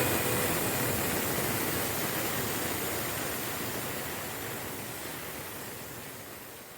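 A steady rushing hiss, even across low and high pitches, fading out gradually.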